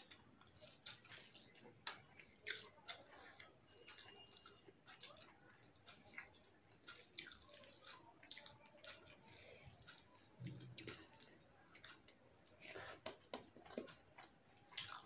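Faint, wet eating sounds: scattered clicks and smacks of chewing and fingers squishing rice and soybean curry on a steel plate.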